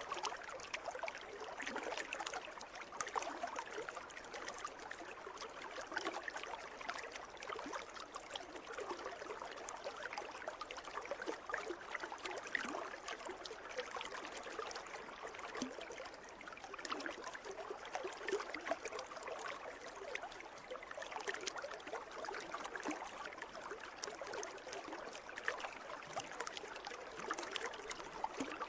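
Water in a pool trickling and lapping steadily, with a constant run of small splashes and gurgles.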